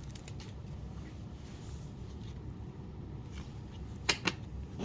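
Quiet handling of trading cards just taken from a torn foil pack, with a few faint ticks near the start and two sharp clicks about four seconds in, over a low steady background.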